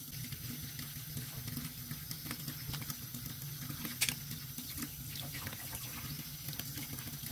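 Water running and splashing in a sink as fish are cleaned, with small scattered clicks and one sharper click about four seconds in.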